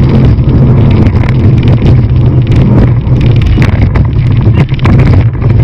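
Speedboat engine running hard at speed, loud and steady, with wind buffeting the microphone.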